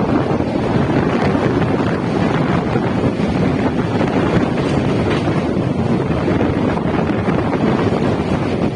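Steady rush of wind buffeting the microphone at an open window of a moving passenger train, over the rumble of the train running across a steel truss rail bridge.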